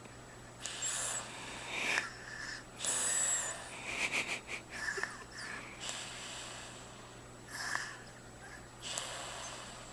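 A baby snoring in its sleep: a series of short, noisy breaths at uneven spacing, roughly one every second or two, with quieter gaps between.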